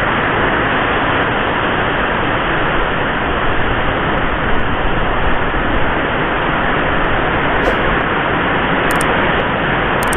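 Heavy typhoon rain and strong wind, a loud, dense, steady hiss with no break.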